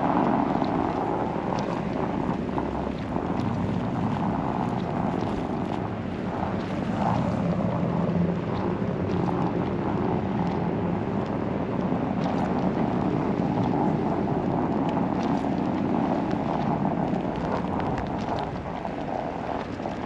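Car driving on a snow-covered road: steady engine and tyre noise, with wind noise on the microphone.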